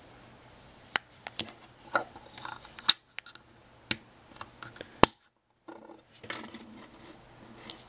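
Small sharp clicks and taps of a 2032 coin-cell battery and the hard plastic key fob shell as the battery is pressed into its holder, with light handling rustle between them. The loudest click comes about five seconds in.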